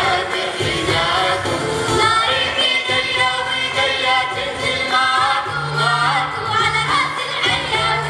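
Youth choir of girls singing an Arabic nasheed in unison, accompanied by keyboard and oud. A low held note comes in a little after halfway.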